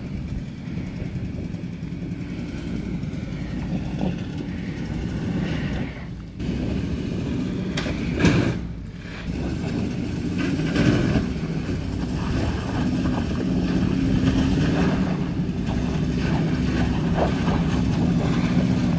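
Off-road SUV engines working up a steep, rocky dirt trail, their steady hum growing louder as they approach. There is a sharp knock about eight seconds in.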